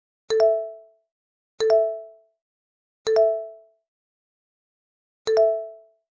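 A bell-like chime sound effect rings four times at uneven intervals. Each ding starts with a sharp click and dies away in about half a second.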